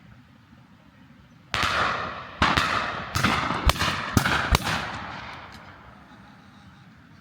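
Shotguns firing a quick volley of about six shots over three seconds, starting about a second and a half in, each shot echoing away after it.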